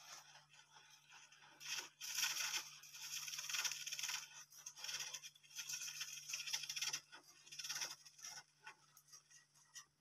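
Dwarf hamsters scrabbling through wood-shaving bedding: dry, scratchy rustling in quick irregular bursts, starting about two seconds in and thinning out near the end.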